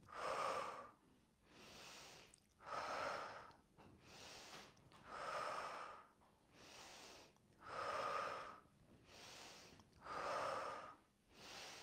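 A woman's audible paced yoga breathing, slow and even, in and out about five times, louder and softer breaths alternating.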